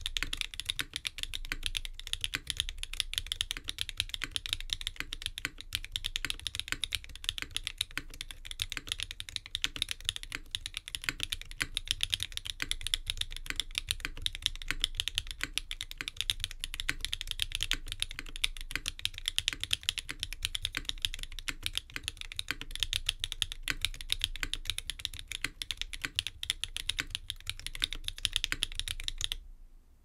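Continuous fast typing on an F2-84 v2 mechanical keyboard with an aluminum plate, stock SWK Jieum switches and GMK ABS doubleshot keycaps: a dense run of loud, clacky keystrokes. The typing stops briefly just before the end.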